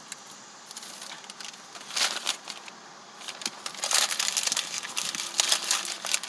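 Close-miked chewing of a mouthful of cheeseburger, with irregular clusters of short clicky mouth sounds that start about a second in and grow busier towards the end.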